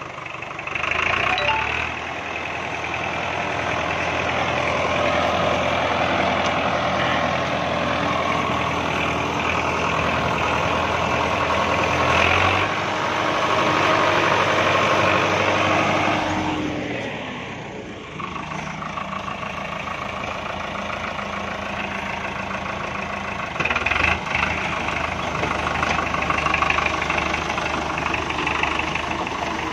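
Farmtrac 6060 tractor's diesel engine running steadily under load while it drives a rear rotary tiller chewing through roadside weeds and brush. The sound dips for a moment a little past halfway, then picks up again, rougher toward the end.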